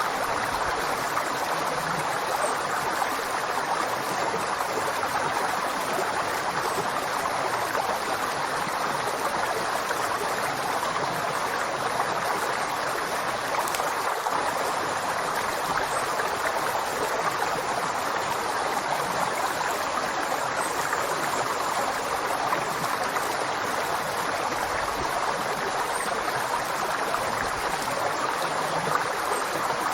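River water flowing steadily over rocks, an even rushing and babbling without let-up.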